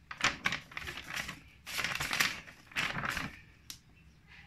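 A large sheet of drawing paper rustling and crinkling as it is handled and turned over. The noise comes in several rough bursts over about three seconds, then it goes quieter.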